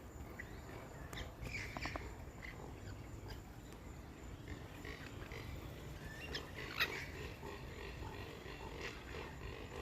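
Scattered short bird calls and squawks, a few together about a second and a half in and a sharp one near the end, over a steady low rumble.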